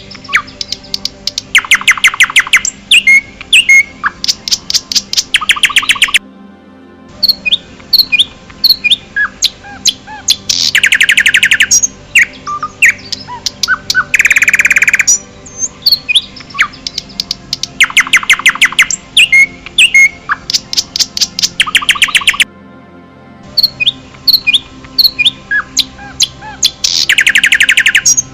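Forest birds singing: loud rapid trills about a second long recur every few seconds, with scattered short chirps and whistles between them. The sound breaks off briefly twice.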